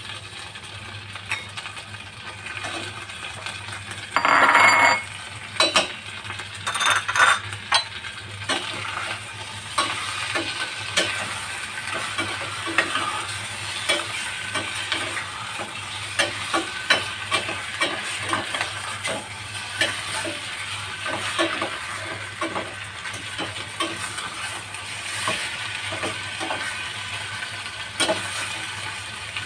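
Chicken pieces sizzling in a stainless steel saucepan while being stirred, the metal utensil clicking and scraping against the pot many times. A loud burst of sound lasting under a second comes about four seconds in, with more loud knocks around seven seconds.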